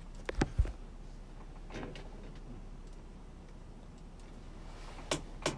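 Light taps and clicks of a device being handled, likely fingers on an iPad: a cluster in the first second and two more near the end, over a low steady hum.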